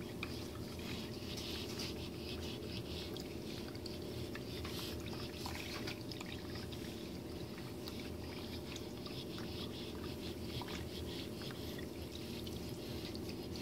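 Pet water fountain's frog-shaped spout trickling a steady stream of water into its bowl, over a steady low hum. Small splashes and laps come in as cats drink from and paw at the water.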